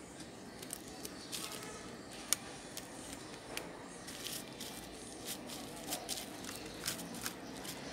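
Rubber bands being stretched and snapped around a smartphone lying on bubble wrap, clamping its freshly glued replacement screen: scattered small clicks and plastic crinkles, with one sharper snap a little over two seconds in.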